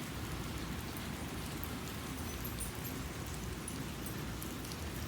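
A steady outdoor hiss like falling rain, with a low rumble underneath.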